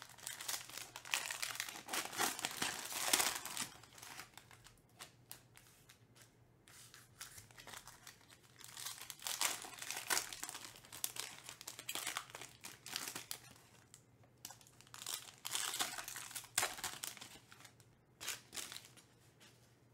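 Foil trading-card pack wrappers being torn open and crinkled by hand, in three or four spells of crackling with quieter pauses between.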